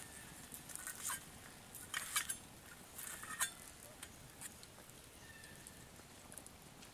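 A metal spoon scraping and clinking against the metal lid of an MSR Seagull cookpot, used as a frying pan, as a fried egg is worked loose: a few short scrapes and clicks, the sharpest a little after two and three seconds in.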